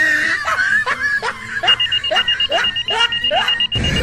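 Logo-intro sound effects: a rapid string of about eight swooping chirps, with a pulsing electronic beep joining about halfway. Near the end they give way suddenly to a loud rushing burst as the logo explodes into sparks.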